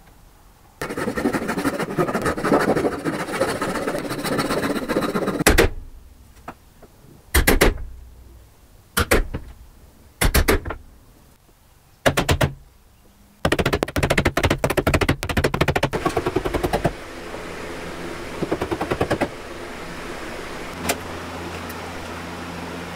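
Bench chisel being struck to chop out the waste between dovetails in hard wenge: a run of rapid knocks, then single sharp strikes every second or two, then another quick run of knocks. A steady low hum sits under the last few seconds.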